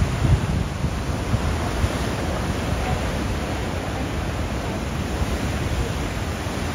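Ocean surf breaking and washing in foam up a stony shore, a steady rush of water, with wind rumbling on the microphone that is strongest at the start.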